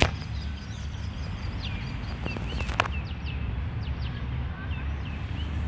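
Small birds chirping in short, repeated calls over a steady low rumble of outdoor background noise, with a couple of brief clicks about two and a half seconds in.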